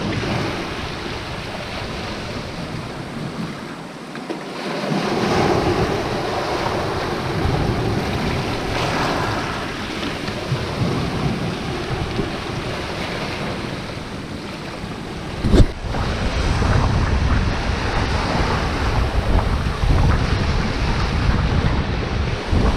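Sea waves breaking and washing up a pebble beach, swelling and ebbing, with wind buffeting the microphone. About two-thirds of the way through there is a single sharp click, after which the surf is louder, with more low wind rumble.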